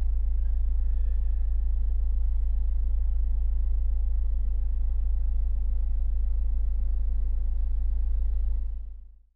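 Steady low rumble of a car being driven, heard from inside the cabin; it fades out near the end.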